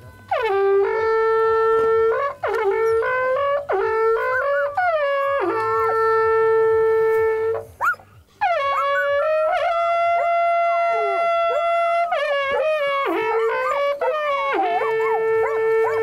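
A horn playing long held notes, most of them opening with a quick upward scoop in pitch. There is a short break about eight seconds in, followed by a higher held note.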